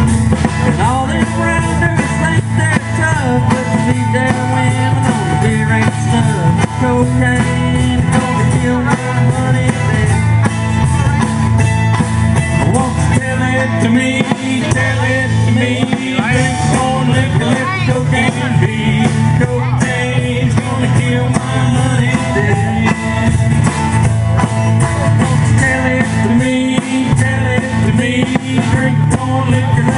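Live band playing a country-rock song on upright bass, guitars and drums.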